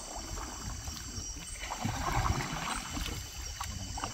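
Water sloshing and lapping, with light irregular splashes, as people move through it.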